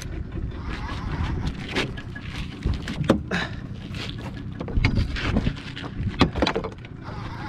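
Small fishing boat's engine running at slow trolling speed, a steady low rumble mixed with water and wind noise. Several sharp knocks, the loudest about three and about six seconds in.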